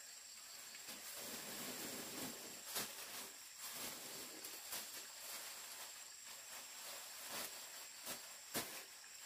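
Faint steady high hiss with a thin, even high tone, broken by a few sharp clicks or taps, the loudest about eight and a half seconds in.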